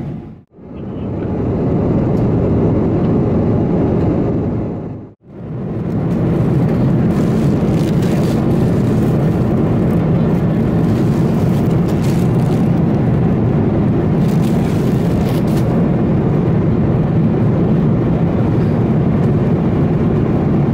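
Steady engine and airflow noise inside the cabin of a Boeing 777-300ER with GE90 engines, a constant low-heavy rush that cuts out briefly twice, about half a second and five seconds in.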